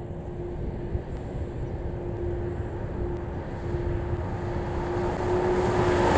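Boeing 747-400F freighter's four Pratt & Whitney PW4062A turbofans at climb power after takeoff: a steady low jet rumble with a faint steady hum, growing gradually louder.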